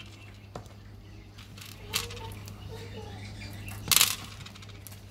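Small sugar-coated chocolate beans dropping out of a plastic tube and clattering onto a hard table: a light click, then two short clatters, the second and loudest about four seconds in.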